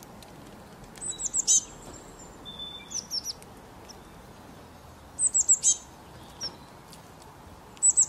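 A small songbird chirping: quick groups of four or five short, high, falling notes, repeated about every two seconds.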